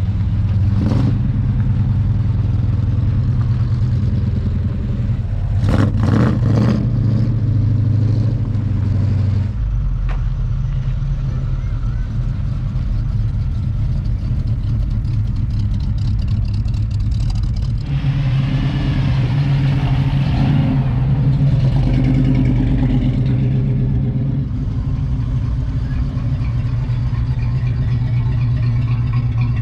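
Classic and muscle car engines running as the cars drive slowly past one after another, with a few throttle revs.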